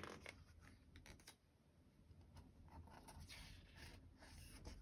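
Faint rustle of a picture book's paper page being turned by hand, followed by a few soft scrapes of fingers on the pages; otherwise near silence.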